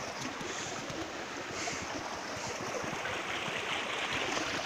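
Steady rushing of a small woodland stream, an even noise with no distinct events.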